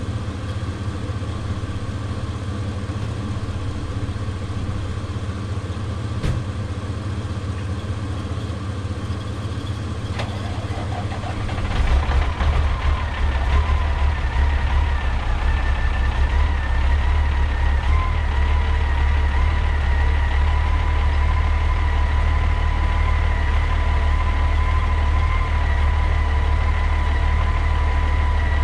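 Caterpillar 3406B inline-six diesel in a Ford LTL 9000 truck idling. About twelve seconds in it gets louder and heavier, and a steady whine joins it.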